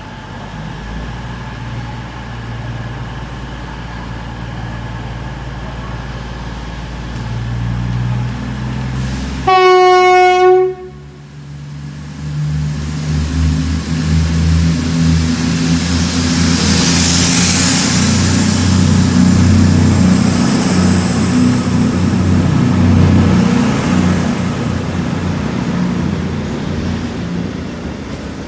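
CrossCountry Class 221 Super Voyager diesel multiple unit sounding its horn once, a single note about a second long, roughly ten seconds in, over the rumble of its underfloor diesel engines. From about two seconds after the horn the engine rumble grows louder and stays up, with a thin high whine rising under it later.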